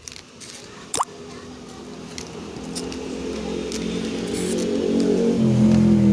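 A sharp click about a second in, then the steady hum of a small ceiling fan's motor, growing louder over the next few seconds.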